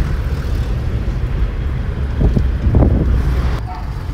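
Steady low rumble of a car driving on the road, heard from inside the cabin, with two short louder sounds a little past the middle.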